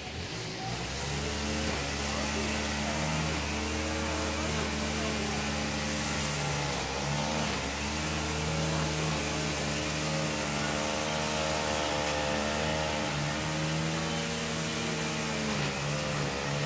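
An engine running steadily, its pitch dipping briefly about seven seconds in and again near the end.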